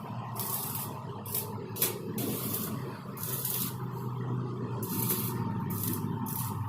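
Metalworking on a steel frame: a steady machine hum with a constant whine, broken by about eight short hissing bursts as the tool bites the metal.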